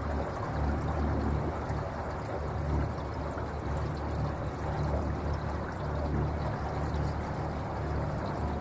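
Water rushing and gurgling against the hull of a quiet electric boat under way, a steady wash with an uneven low rumble beneath it.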